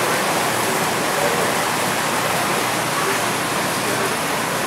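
Steady, even hiss of background noise, with faint indistinct voices now and then.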